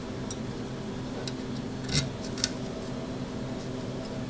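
A few light, sharp clicks of small screws and standoffs being handled and fitted against a carbon fiber drone frame, the loudest about two seconds in, over a steady low hum.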